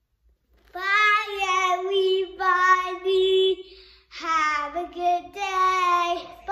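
A young boy singing unaccompanied, holding long notes in three phrases with short breaks between them.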